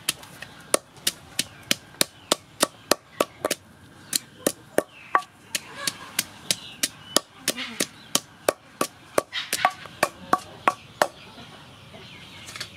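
Wooden pestle pounding garlic and dried chili in a wooden mortar: sharp, even knocks about four a second that stop near the end.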